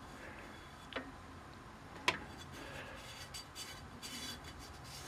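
Faint ticks and rubbing as a brake drum clamped in a small lathe's chuck is turned slowly by hand, the spindle stopped, with one sharp click just after two seconds in.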